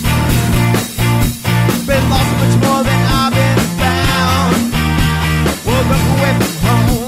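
Rock song playing as a soundtrack: a steady, heavy beat with bass and a melodic lead line over it.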